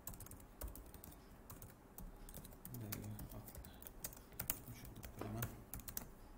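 Typing on a computer keyboard: a run of irregular key clicks as a few words are typed.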